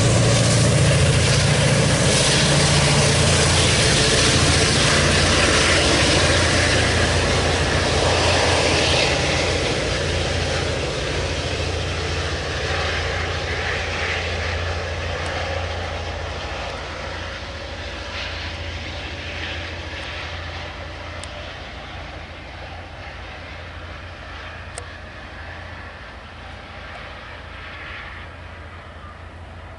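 Caltrain diesel passenger train running past and fading into the distance, its wheel and rail noise dying away gradually while a steady low diesel engine drone carries on underneath.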